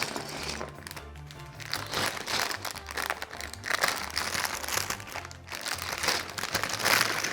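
Plastic LEGO parts bags crinkling as they are opened, over background music with a repeating bass line.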